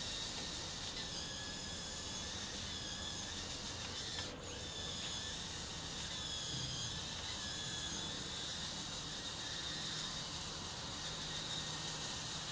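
1/14-scale RC hydraulic excavator running, its electric hydraulic pump and track drive giving a steady mechanical whine with wavering high tones as it turns and drives on its tracks. The sound dips briefly about four seconds in.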